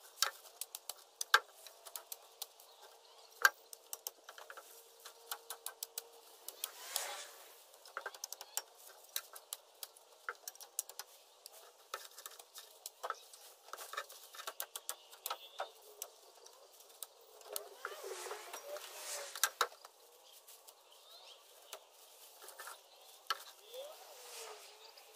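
Machete (cane knife) chopping leafy tree branches: irregular sharp chops and snaps, the two loudest within the first few seconds. Leafy branches rustle as they are dragged and packed into a truck's tipper tray, about seven seconds in and again for a couple of seconds near eighteen to twenty seconds in.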